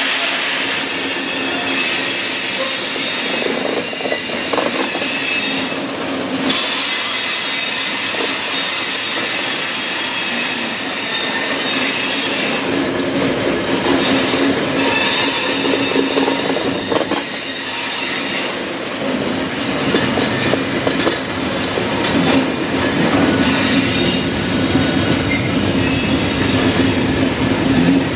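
Covered hopper freight wagons rolling past on the rails, their wheels squealing in several high steady tones that shift in pitch, over the rumble and clatter of the wheels.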